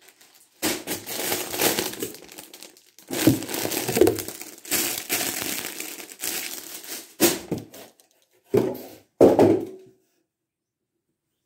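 Plastic garment bags crinkling and crumpling as they are handled, in several loud, irregular bursts.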